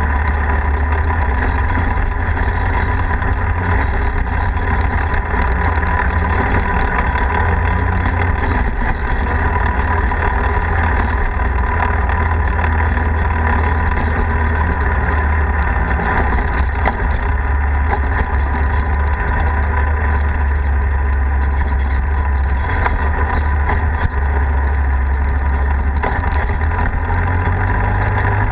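Polaris RZR side-by-side's engine running steadily as it drives along a dirt road, a constant heavy drone with no change in speed.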